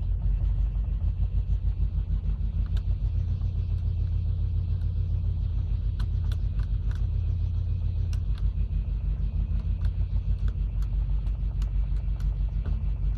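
Toyota 3S-GTE (second generation) turbocharged four-cylinder engine running roughly with a pulsing, uneven beat and sharp knocks at irregular intervals, more frequent from about halfway on. It is knocking and running on three cylinders, a misfiring cylinder.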